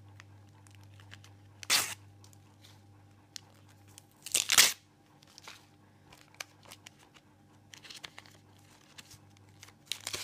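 Panini sticker packet's shiny wrapper being torn open by hand: two sharp rips, the first about two seconds in and the louder one about four and a half seconds in, followed by light crinkling of the wrapper, with more rustling near the end.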